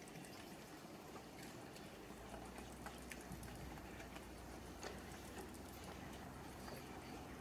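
Faint, quiet ambience of a waiting audience and stage, with a low steady hum coming in about two seconds in and a few soft clicks.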